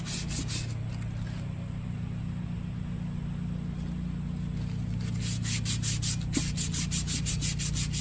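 Fine sandpaper rubbed back and forth by hand on the rusty steel bead seat of a wheel rim, in quick strokes about five a second, smoothing it so the tire bead will seal. The strokes stop about a second in and start again about five seconds in, over a steady low hum.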